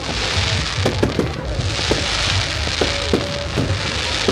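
Fireworks display: a continuous fizzing crackle from crackling stars, with several dull bangs of shells going off.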